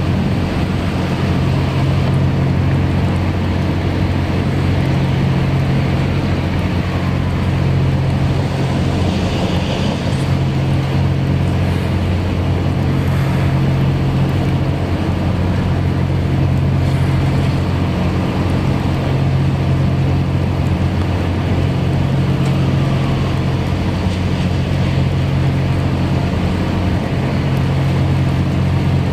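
Steady rain falling on wet pavement, under a loud, steady low mechanical hum that does not change.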